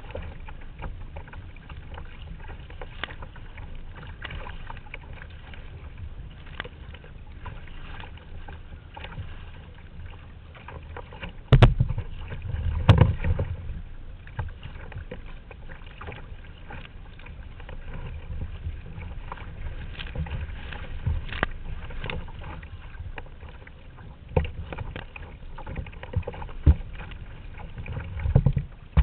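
Sea kayak being paddled: a steady run of paddle blades dipping and splashing in the water, with water lapping against the hull. Two loud knocks come a second apart about twelve seconds in.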